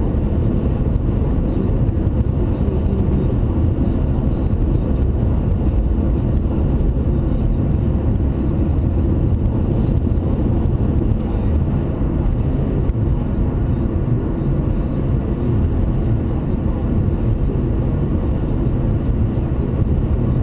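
Steady road and engine rumble inside a moving car's cabin, picked up by a windshield-mounted dash cam's built-in microphone.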